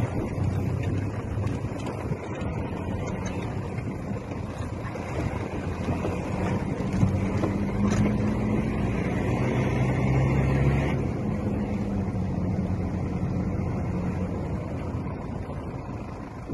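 Waterfall rushing steadily, a dense wash of falling water that is heaviest in the low range.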